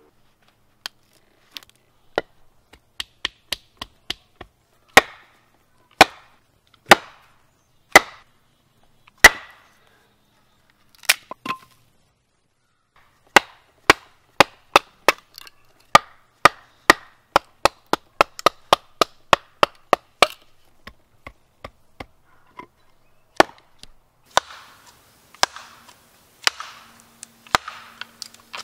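Sharp wooden knocks of a wooden baton striking the spine of a knife, driving the blade down through a small round log to split it. Single blows about a second apart give way to quicker runs of three or four a second, with a rougher rustling sound between the blows near the end.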